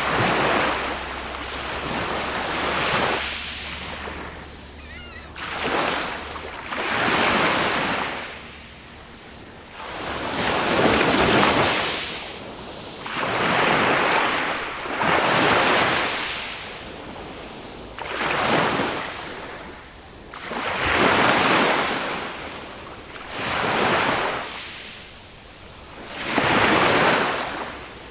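Small waves of a calm sea breaking on the beach and washing up the shore, one surge about every two to three seconds.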